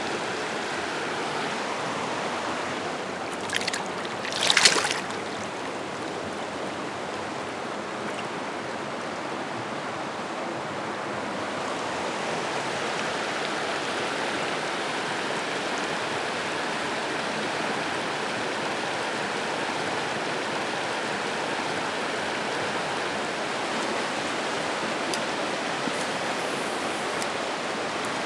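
Shallow, rocky river current rushing steadily over riffles close by, with a brief louder splash about four seconds in.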